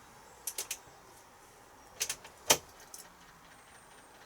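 Keys jangling and sharp clicks as the ignition key of a Fiat Ducato motorhome is turned: three quick clicks about half a second in, then two more and a louder one around two seconds in. The engine does not crank, because the starter battery is flat.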